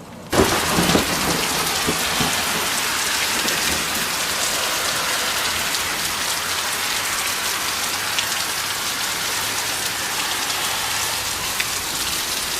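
Heavy rain pouring down, a dense steady hiss that starts abruptly just after the beginning. A few low knocks sound in the first two seconds.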